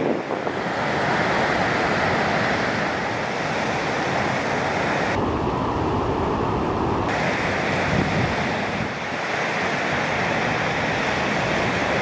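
Ocean waves breaking and rushing as steady surf noise, with wind buffeting the microphone. The hiss turns duller for about two seconds midway through.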